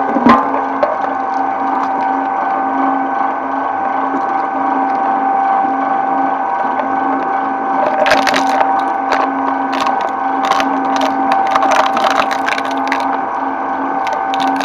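Twin-shaft shredder running with a steady humming drone, its cutter discs turning. A sharp knock comes just after the start as an item drops onto the cutters. From about eight seconds in there is a run of sharp cracking and clicking as plastic is caught and rattles on the blades.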